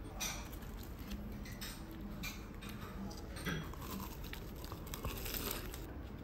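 Crisp crunching and crinkling close to the microphone, in irregular short bursts about once a second.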